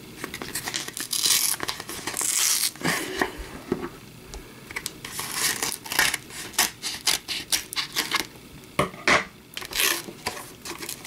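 Taped cardboard mailer being torn and pried open by hand: two long tearing rasps of cardboard and packing tape in the first few seconds, then a run of short scrapes and crackles as the cardboard flaps are worked apart.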